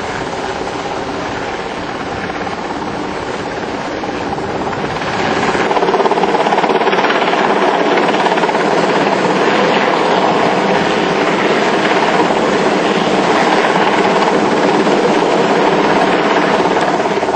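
Helicopter running steadily, growing louder about five seconds in and holding at that level.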